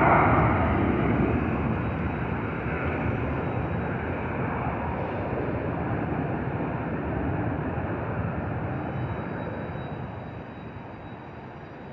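Aircraft engine noise fading away as the plane moves off: a broad rushing sound that dies down steadily.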